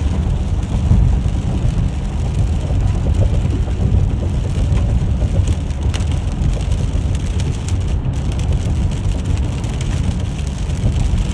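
Steady road noise heard from inside a car at freeway speed in heavy rain: a deep rumble of tyres and engine under an even hiss of tyres on the wet road and rain on the car.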